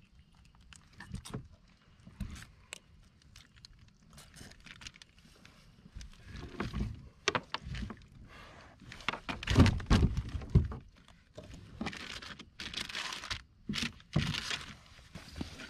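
Irregular knocks, clicks and thumps on a kayak, with the loudest heavy thumps clustered about nine to eleven seconds in, followed by a few seconds of hissy rustling.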